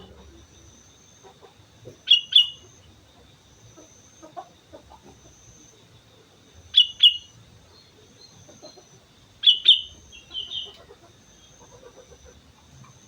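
Sooty-headed bulbul calling: three loud, sharp double notes a few seconds apart, the last followed by a softer call, over a faint steady high tone.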